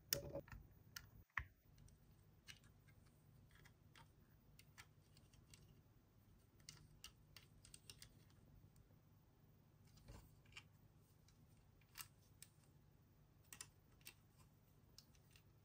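Faint scattered clicks and taps of plastic LEGO bricks being pressed together and handled, a little busier in the first second or two.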